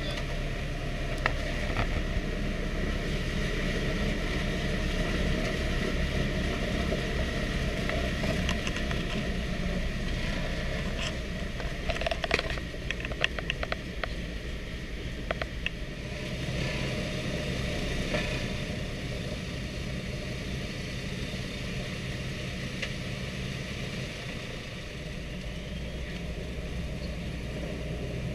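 The Wright R-2600 radial engines of a B-25 Mitchell running steadily at low power on the ground to warm the engine oil, heard from inside the fuselage. A short cluster of rattling knocks comes between about 12 and 15 seconds in.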